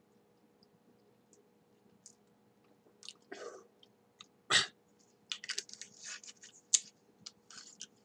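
Mouth sounds of a person tasting a swallow of gin: lip smacks and tongue clicks coming thick and fast from about three seconds in, with a breath out and one louder sharp sound about halfway through.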